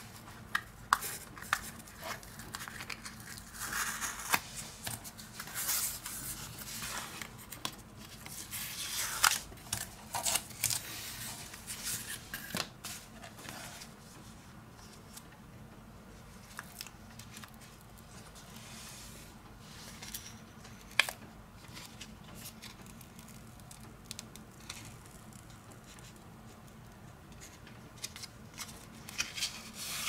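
Backing paper being peeled off a strip of Toyota aluminium tape, with crackly tearing and rustling in bursts and sharp clicks through the first half, then quieter handling of the foil with a few isolated clicks.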